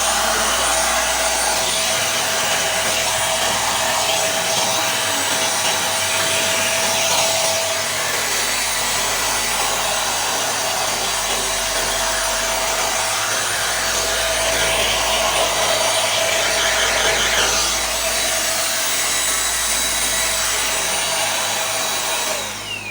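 AGARO Regal 800 W handheld vacuum cleaner running steadily at full suction, with a high motor whine. Near the end it is switched off and the motor whine falls away as it winds down.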